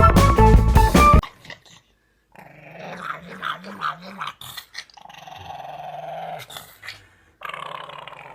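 Background music that cuts off about a second in, then a dog growling in three stretches, its low pitch wavering up and down.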